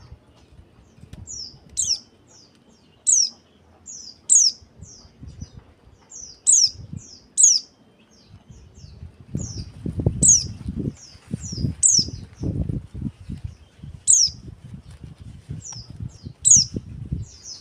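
Female white-eye (pleci) calling: short high chips that each slide down in pitch, given in runs of two or three every second or two. Low thumps and rustles sound underneath, stronger in the second half.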